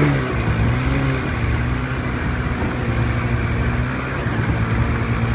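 Snowmobile engine running at a steady pitch while riding along the trail, after a brief rise in revs at the very start.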